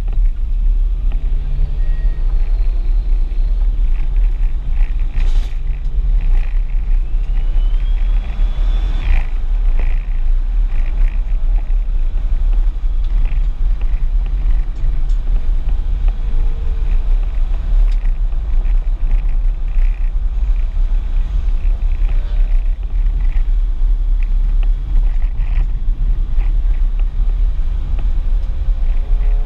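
Audi S4 engine and road noise heard inside the cabin at speed: a steady, heavy low rumble, with the engine note faintly rising and falling as the car accelerates and shifts.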